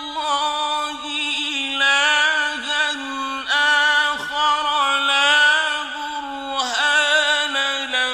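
A man reciting the Quran in slow, melodic Arabic chant (tajweed), drawing out long held notes with wavering ornaments.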